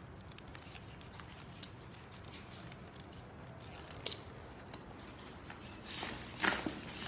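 Plastic air cushion film crinkling and rustling as it is handled, with a few light clicks, getting louder from about six seconds in.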